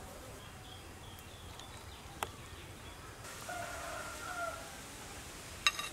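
A rooster crows once in the background, a single call of a bit over a second in the middle. A sharp clink near the end is the loudest moment.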